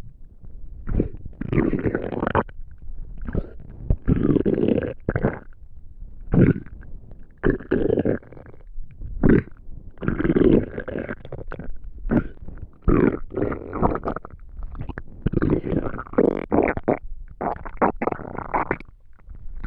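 Human stomach rumbling and gurgling during digestion, in a string of irregular bursts from a fraction of a second to over a second long, separated by short gaps.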